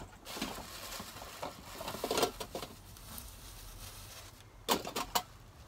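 Rummaging and handling of containers: soft, uneven rustling and light clicks, with a few sharp knocks near the end.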